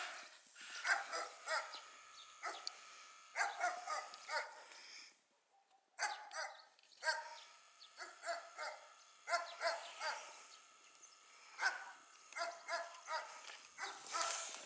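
Faint dog barking, short barks coming in quick clusters again and again.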